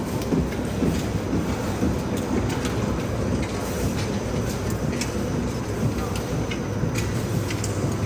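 Reinforced concrete pipe cage welding machine running: a steady mechanical rumble and hum with irregular sharp clicks.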